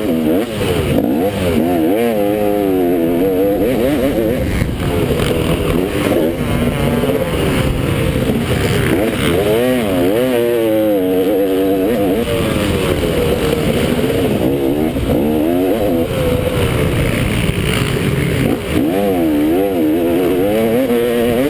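Motocross bike engine ridden hard, revving up and dropping back again and again as the rider accelerates out of corners and over the jumps. Heard up close from on board, over a steady rush of noise.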